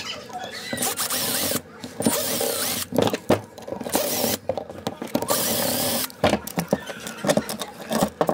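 Cordless drill-driver spinning in four short runs, each under a second, as it backs out the housing screws of an old electric fan motor. After that come a series of sharp metal clicks and knocks as the motor parts are handled.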